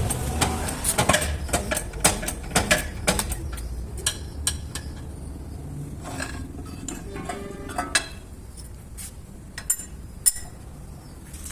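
Metal tools and parts clinking and tapping: a quick run of sharp knocks over the first few seconds, then sparser clicks, with two louder ones near the end.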